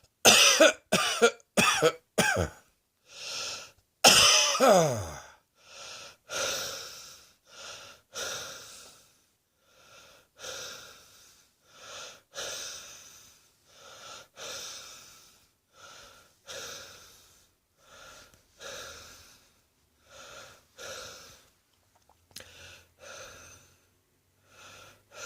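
A person coughing: a fit of sharp, loud coughs in the first few seconds, one with a falling voiced tail about four seconds in. Then comes a long run of weaker, breathy coughs about one a second that grow fainter toward the end.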